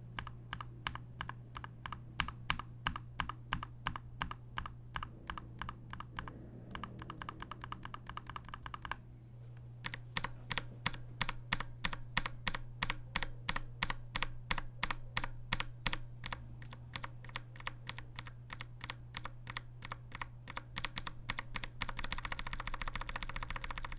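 Typing on a TKL mechanical keyboard with Gateron G Pro 3.0 switches: a steady run of keystrokes at about five a second. There is a brief pause about nine seconds in and a faster flurry near the end.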